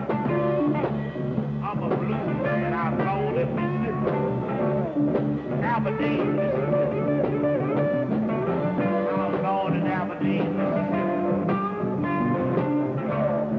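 Live electric blues band playing, with keyboard and bending lead lines over a steady bass line.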